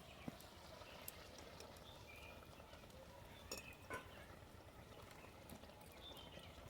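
Near silence: faint room tone with a few soft, short clicks.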